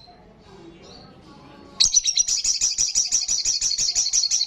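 Little spiderhunter (sogon) singing: after a few faint high chirps, nearly two seconds in it breaks into a loud, high, rapid run of repeated notes, about ten a second, lasting over two seconds.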